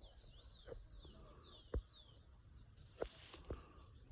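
Faint footsteps on a trail, four uneven steps, while a bird calls in a series of short, high, falling whistles. There is a brief rustle about three seconds in.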